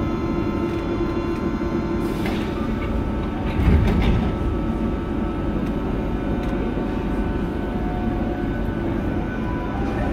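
Athens metro train standing at the platform with a steady electric hum from its onboard equipment. Its doors slide shut with a loud thump about four seconds in, and the train starts to pull away near the end.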